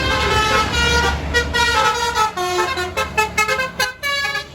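A bus's telolet multi-tone musical air horn playing a quick tune of short notes that step up and down in pitch, over the low running of the bus engine. Near the end the notes break into short, choppy toots.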